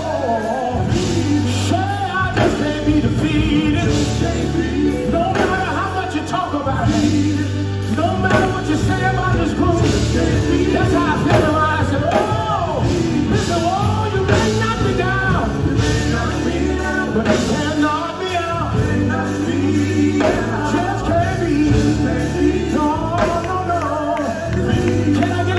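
Live gospel group performance: a lead singer sings in long, bending runs over backing vocals, electric bass guitar and keyboard, with a strong steady bass line.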